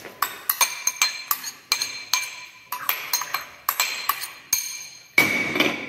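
A metal spoon repeatedly tapping and scraping against a ceramic bowl to knock chopped green beans out of it, a quick run of sharp ringing clinks, about three or four a second. A louder, longer clink and scrape comes near the end.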